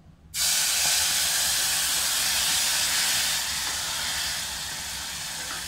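Water poured into hot caramelising sugar and ghee in a pot, bursting into a loud hiss of steam that starts suddenly and eases slowly after about three seconds.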